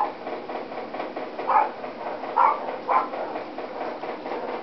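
Four short animal calls, brief and mid-pitched, spaced over a couple of seconds above a steady background hum.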